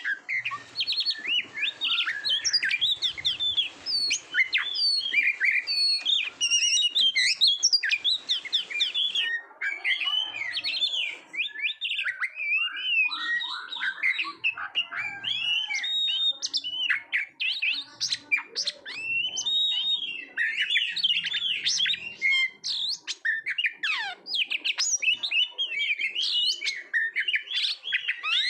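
Oriental magpie-robin (kacer) singing continuously: a fast, varied stream of clear whistles, chirps and quick rising and falling notes with hardly a pause.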